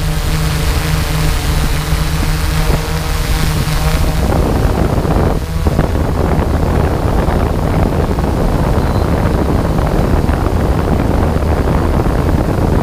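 On-board sound of a camera drone's motors and propellers: a steady hum. About four seconds in, a rough rushing of wind across the microphone takes over.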